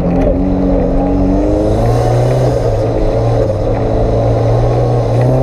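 Off-road 4x4's engine running hard as it drives a muddy forest track, heard from inside the cabin, its revs rising and falling as the driver works the throttle.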